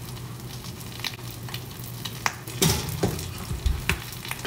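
An egg frying in hot oil in a pan, a steady sizzle, with a few sharp clicks and knocks over it, the loudest a little past halfway.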